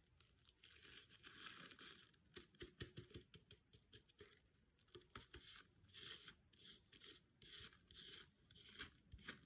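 Faint, irregular rustling and crinkling of red tissue paper being handled and laid onto a glue-coated plastic jar.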